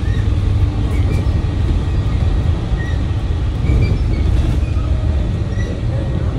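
Steady low rumble of a moving vehicle, with a few faint short high chirps over it.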